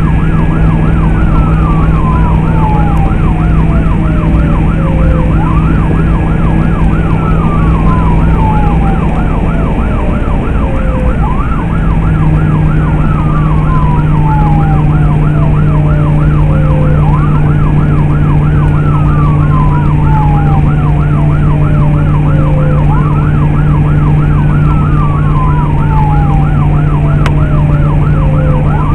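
Emergency vehicle sirens running two tones at once. A fast yelp warbles about four times a second over a slow wail that climbs quickly, holds briefly and falls away, repeating every five to six seconds. A steady low drone of the vehicle runs underneath.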